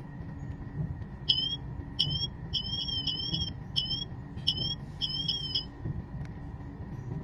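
A replica Apple Watch Ultra smartwatch sounding its SOS alarm: a run of short, high-pitched electronic chirps, some single and some in quick pairs, lasting about four seconds before it stops.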